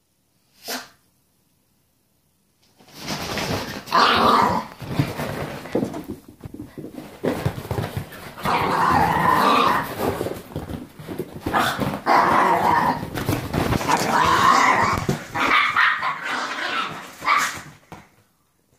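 Two Italian Greyhounds play fighting, growling and barking at each other almost without pause from about three seconds in, after one brief sound just before the first second.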